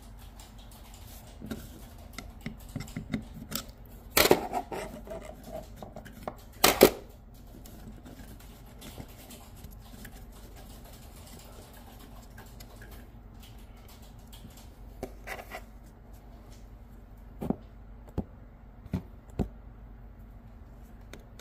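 Scattered clicks and knocks of things being handled, with two louder knocks about four and seven seconds in and four sharp ticks near the end.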